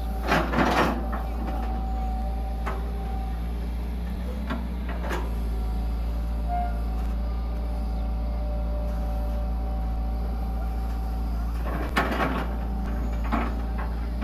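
Hitachi EX120 excavator's diesel engine running steadily with a hydraulic whine, as the long arm swings and works the bucket. Short metallic clanks and knocks from the bucket and boom linkage come in a cluster at the start, singly a few seconds in, and again near the end.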